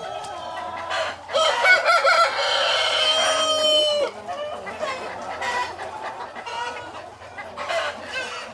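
Chickens clucking, with a rooster crowing once, starting about a second in and lasting nearly three seconds, the loudest sound.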